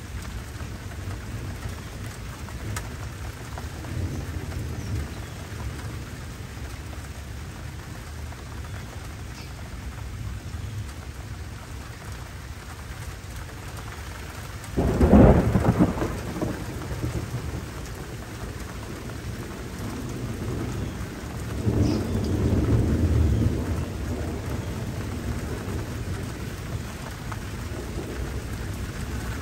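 Thunderstorm: steady rain hiss, with a sudden loud thunderclap about halfway through and a longer, rolling rumble of thunder several seconds later.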